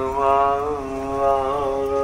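A single voice holding one long sung note at a nearly steady pitch, with slight wavers.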